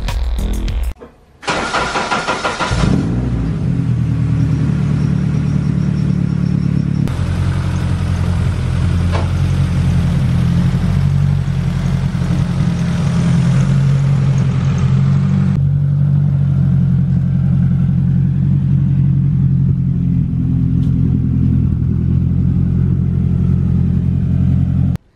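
A car engine, the Honda K-series swapped into a Subaru Impreza, starts about a second in and then idles steadily, its tone shifting a couple of times along the way.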